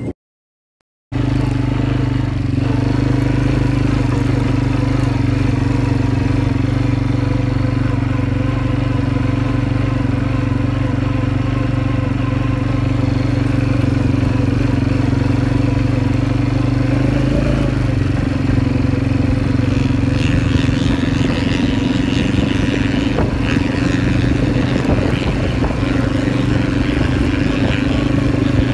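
Quad bike (ATV) engine idling steadily, starting about a second in; about two-thirds of the way through it revs up and the quad sets off, its engine note changing and more rushing noise joining it.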